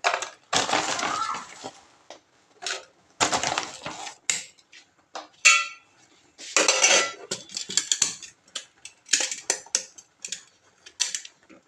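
Kitchen utensils and dishes clattering and scraping in short irregular bursts, with a few sharp clinks.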